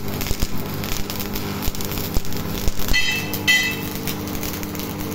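Electric arc welding on steel tubing: the arc crackles and spits steadily over a low steady hum. Two short high chirps come about three seconds in.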